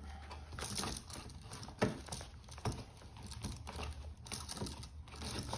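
Electrical cable rustling and scraping as it is pulled and handled along wall framing, with many small ticks and two sharper knocks about two and three seconds in.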